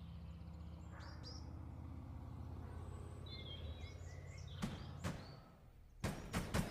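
Film-soundtrack morning ambience: birds chirping over a low steady hum. Two sharp knocks come about four and a half and five seconds in, and a run of clacks and thumps starts near the end.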